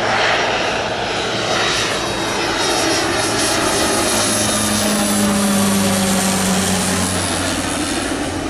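Grob G 520T Egrett-2's single turboprop engine and propeller in a low flypast: a loud, steady drone whose tones bend slightly lower in the second half as the aircraft passes.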